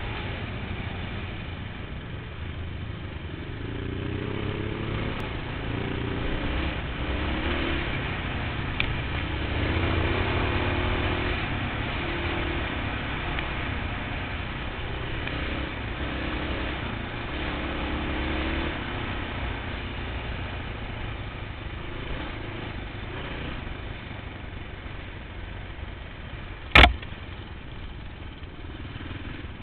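Kawasaki KLX 650 single-cylinder four-stroke dirt bike engine running off-road, its revs rising and falling again and again as the throttle is worked. A single sharp bang sounds about 27 seconds in.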